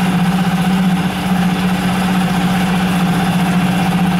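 Yamaha F5 four-stroke single-cylinder outboard motor idling steadily at low throttle, left running with the fuel tap shut so the carburettor runs dry; the engine is new and not yet run in.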